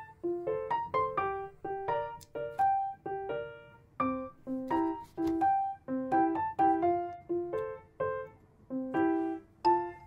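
Background music: a light piano melody of single struck notes, a few a second, each fading quickly.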